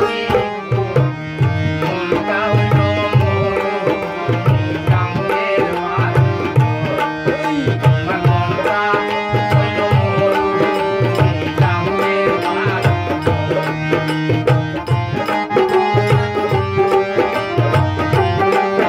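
Harmonium playing a melody over a steady hand-drum rhythm of low thumps, some of them bending in pitch, and sharp higher strokes.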